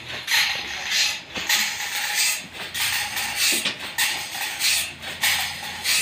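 A long bar being struck repeatedly against a huge trembesi log, about one hit every two-thirds of a second, over the low steady hum of the sawmill's machinery.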